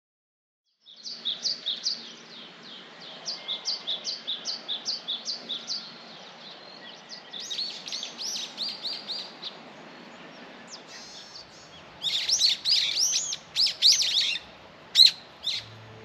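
Wild songbirds singing: runs of quick, high, falling chirps repeated over and over, with the loudest, sweeping notes near the end.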